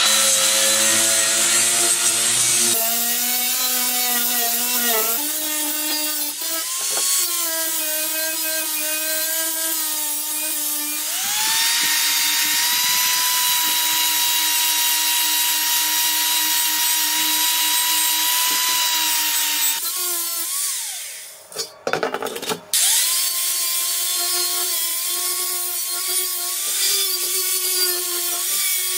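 Angle grinder with a sandpaper disc grinding rust and paint off a rusty metal vending-machine base: a steady motor whine that shifts in pitch as the disc bears on the metal, rising and holding about eleven seconds in. It stops briefly a little past twenty seconds and starts up again.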